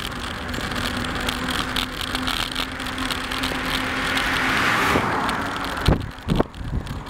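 A car passing the bicycle: its tyre and engine noise swells to a peak about five seconds in, then drops away abruptly, over steady wind and riding noise. A few sharp thumps follow near the end.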